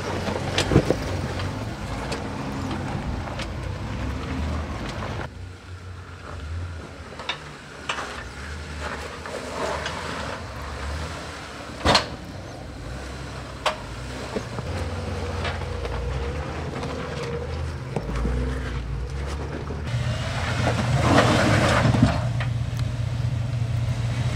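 Jeep Wrangler engine running at low trail speed while crawling over rock, with a few sharp knocks and clunks. The engine grows louder about twenty seconds in.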